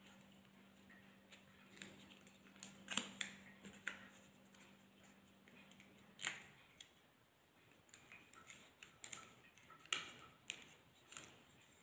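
Faint, irregular clicks and crinkles of dry areca palm leaf petals being handled and bound with thread, a dozen or so separate ticks. A faint steady low hum stops about six seconds in.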